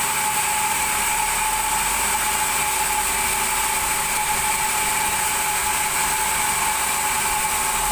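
Large vertical band sawmill running with a steady high whine over a hiss.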